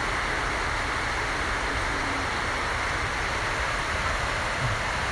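A steady, even hiss with no words.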